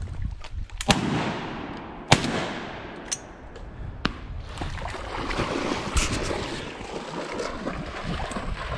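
Two loud shotgun shots about a second apart, each echoing, followed by several fainter sharp reports.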